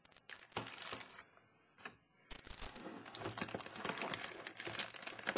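Plastic accessory bags crinkling and cardboard packaging rustling as a hand rummages in a camera box, in quick light clicks and crackles. There is a short pause about a second in before the rustling picks up again.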